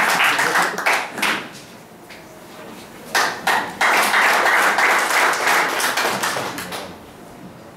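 A small group applauding by hand clapping. The clapping dies away about a second in, picks up again with a few scattered claps around three seconds in, then swells into a second round of applause that stops about a second before the end.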